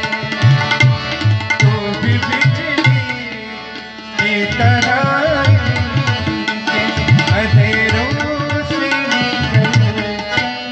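Tabla playing a brisk rhythm, with deep, resonant strokes from the bass drum (bayan), over sustained harmonium chords, as an instrumental passage of ghazal accompaniment. The music thins out and softens a few seconds in, then comes back in full about four seconds in.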